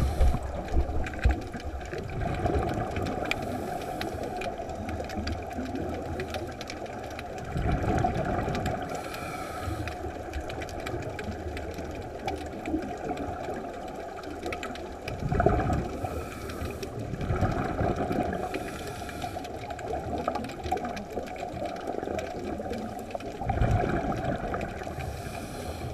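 Scuba breathing heard underwater through the camera housing: a muffled steady rumble with a surge of regulator exhaust bubbles every several seconds.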